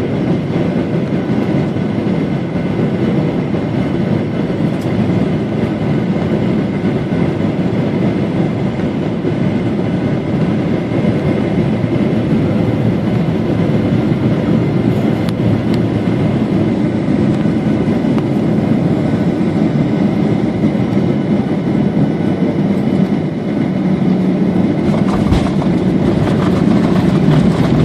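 Jet airliner cabin noise during the landing approach: a steady, loud rushing drone from the engines and airflow, with a faint steady whine running through it. A low thump comes near the end.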